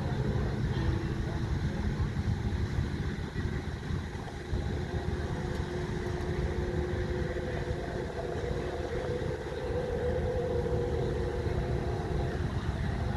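Wind buffeting the microphone in a steady low rumble, with a faint motor hum beneath it through the middle.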